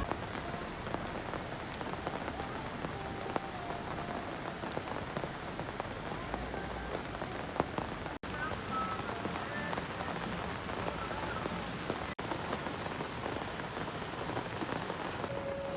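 Steady rain falling, a dense even patter of drops, with a couple of faint short chirps over it.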